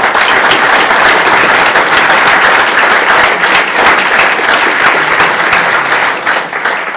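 A large audience applauding, many people clapping at once in a dense, steady patter that thins out near the end.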